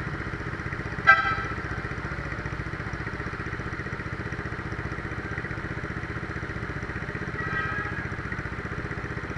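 A small motorcycle engine idling steadily, with one sharp short clink about a second in.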